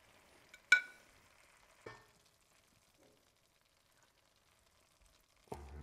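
Metal kitchen tongs clink sharply with a brief ring as braised chicken drumsticks are lifted onto a plate, followed by a lighter tap about a second later and a soft knock near the end. Under it, the thickened sauce left in the pan sizzles faintly.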